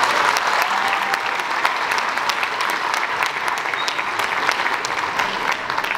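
Audience applauding, a dense steady patter of many hands clapping that eases off near the end.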